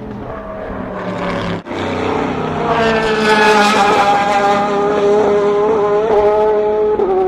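Race car engines at full noise through a corner: several engine notes that build up about three seconds in, ease slightly in pitch and then hold steady, with a brief sudden dropout in the sound between 1 and 2 seconds in.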